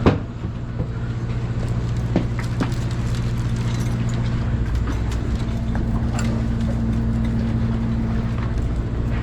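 Boat engine running with a steady low hum, with a sharp knock right at the start and a few lighter knocks and clanks of gear being handled on deck.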